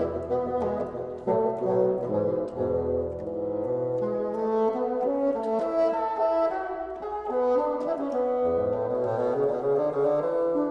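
A bassoon quartet playing: four bassoons in held chords and moving lines, with low notes in the bass.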